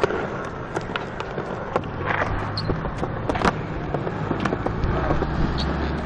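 Skateboard wheels rolling over smooth concrete: a steady low rumble with scattered sharp clicks, one louder click about three and a half seconds in.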